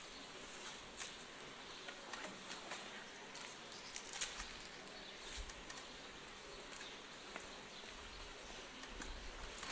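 Quiet open-air ambience through the altar microphone: a faint steady hiss with a few small clicks and ticks.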